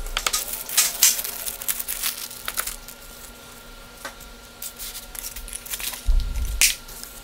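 Plastic packaging crinkling and rustling, with light clicks of small metal router accessories (wrenches, screws, a collet adapter) being set down on a plastic tarp. A dull thump about six seconds in as the fabric tool bag is set down.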